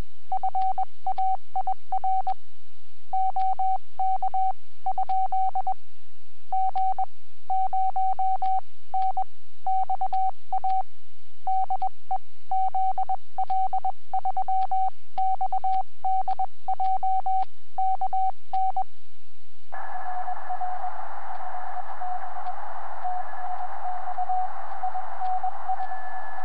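Morse code (CW) tone from an amateur HF transceiver: a single pitch keyed on and off in dots and dashes. It stops about 19 seconds in, and the receiver's band hiss comes up with a faint steady tone in it.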